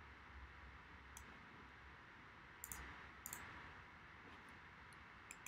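A handful of faint computer mouse clicks, spread out over near-silent room tone.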